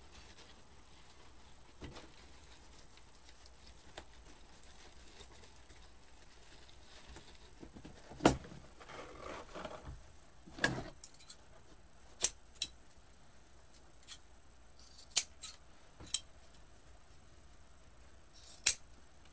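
Quiet at first, then from about eight seconds in a scattered series of sharp clicks and short rustles: wired ribbon and its spools being handled, and ribbon being snipped with scissors near the end.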